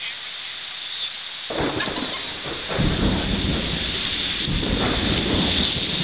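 Steady hiss of rain, joined suddenly about a second and a half in by a louder, wavering low rumble.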